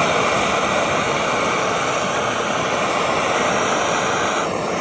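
MAP-gas hand torch flame burning with a loud, steady hiss while heating a badly rusted bolt toward cherry red to break it free.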